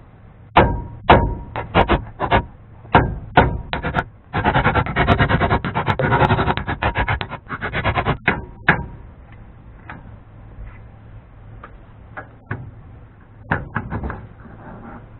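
Hammer striking a drift to knock a rust-seized Dana 44 spindle out of the steering knuckle: a series of sharp metallic strikes, then about four seconds of rapid hammering, then a few scattered taps near the end.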